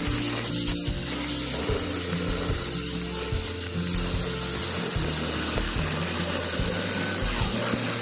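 Handheld electric stone saw with a diamond blade cutting steadily through a wet granite slab, a continuous grinding whine, under background music with a stepping bass line.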